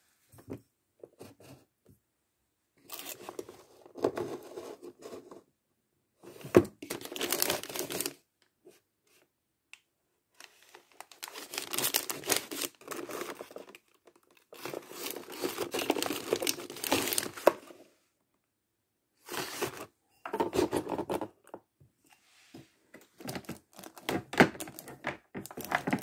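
Plastic food packaging crinkling and rustling in irregular bursts as packs are handled and moved about inside a fridge, with short pauses between them.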